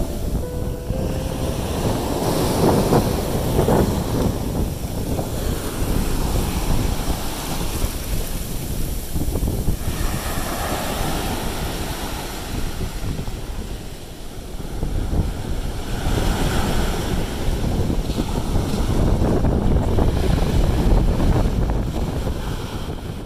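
Wind buffeting the microphone: a loud, rumbling rush of noise that swells and eases in gusts, strongest about three seconds in and again near the end.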